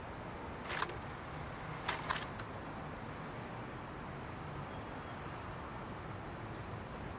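Steady background noise, a low hum and hiss, broken by a few short sharp clicks: one about a second in and a quick cluster about two seconds in.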